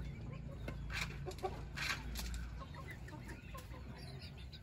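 Backyard chickens clucking now and then, over a low background rumble that fades out about halfway through.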